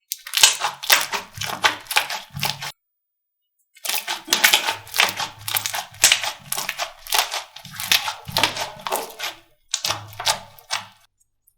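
Slime being squeezed and pressed by hand: quick, crackly squishes about three a second, stopping dead for about a second near the start and again near the end.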